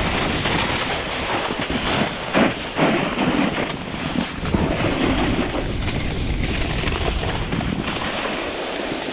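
Skis scraping and hissing over firm spring snow through a run of turns, with steady wind rushing over the microphone; a few sharper scrapes come about two to three seconds in.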